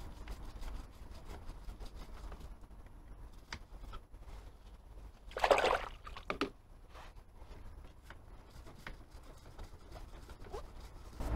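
Liquid sprayed onto a quad's drive chain and rear sprocket to wash off grime, with one loud spray hiss of about half a second just past halfway and a shorter one right after; faint scattered ticks in between.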